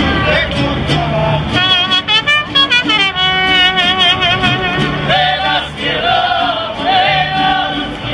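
A street band singing with guitar accompaniment, the lead voice holding long notes with a strong, wavering vibrato.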